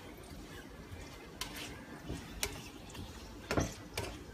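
A spatula stirring sliced onions and green chilies in a nonstick wok-style pan, scraping and knocking against the pan over a faint steady hiss. There are a few sharp clicks after about a second and a half, and the loudest comes near the end.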